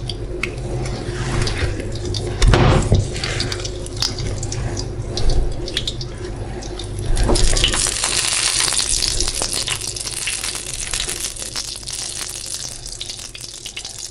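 Omelette frying in butter in a nonstick pan, a steady sizzle that grows louder and brighter about halfway through, with a few knocks and scrapes of a plastic spatula against the pan as the omelette is rolled.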